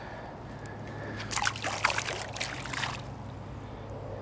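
A redear sunfish let go into shallow lake water, with a short run of small splashes and trickling water from about a second and a half in, lasting about a second and a half.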